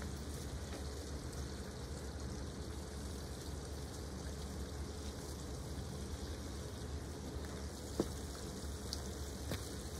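Steady outdoor background noise, a low rumble under a faint hiss, with one short footstep thump about eight seconds in.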